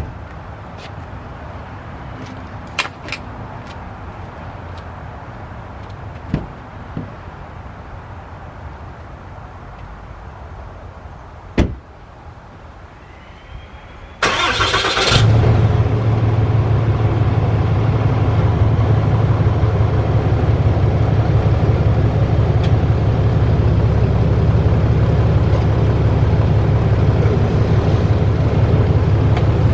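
RAM 3500's Cummins turbo-diesel engine cranked and started after its oil change: a short burst of cranking about 14 seconds in, then the engine catches and settles into a steady, low idle. Before the start there are a few scattered knocks and clicks.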